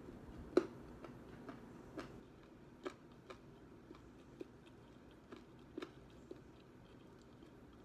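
Closed-mouth chewing of a mouthful of crispy breaded fried chicken: faint, irregular crunches and mouth clicks, the loudest about half a second in, then a handful of smaller ones spaced unevenly.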